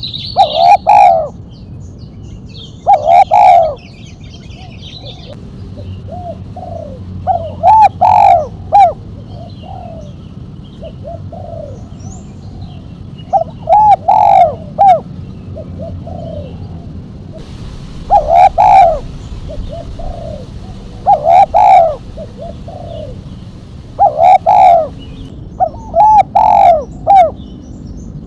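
Spotted dove (tekukur) cooing: about eight loud call phrases, each a quick run of coos, repeat every two to five seconds, with softer single coos between them.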